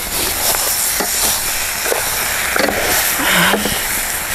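Pork pieces for chicharrón sizzling in their own rendered fat in a metal pan, with no oil added. A wooden spatula stirs them with scattered scrapes and knocks, and the frying grows louder for a moment about three seconds in.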